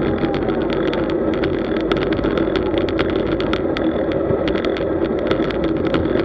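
Road bike riding at about 31 km/h in a group, heard through a bike-mounted action camera: steady rushing wind and tyre noise with frequent sharp ticks and rattles from road vibration.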